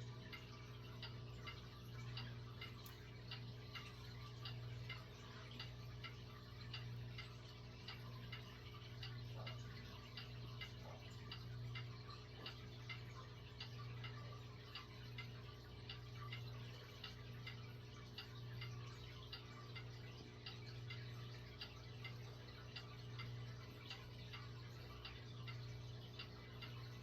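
Vintage Lakewood Country Aire box fan with a Westinghouse motor running: a low motor hum that swells and fades slowly, with a steady run of light ticking throughout. The ticking is the sort the owner attributes to shaft end play, the motor needing thrust washers.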